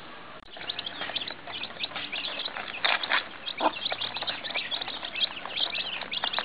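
A brood of young chicks peeping in a dense, continuous chorus of short high-pitched calls, starting about half a second in, with a few louder calls among them.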